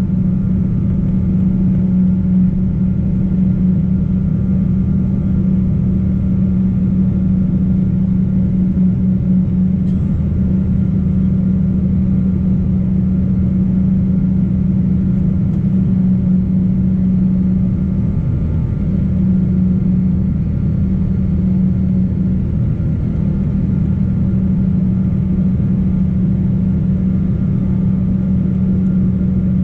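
Boeing 777-200 engine noise heard inside the cabin: a steady drone with a strong low hum and rumble that holds even throughout.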